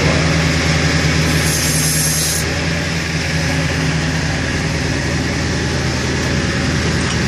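Ford F-550 tow truck's engine running at a raised idle with the PTO-driven hydraulic pump engaged, a steady low hum while the wheel-lift controls are worked. A brief hiss comes about a second and a half in, and the hum's tone shifts slightly about four seconds in.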